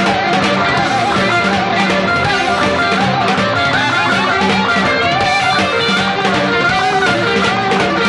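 Live rock band playing loudly, led by an electric guitar solo of quick, bent notes with a wide vibrato over strummed rhythm guitar.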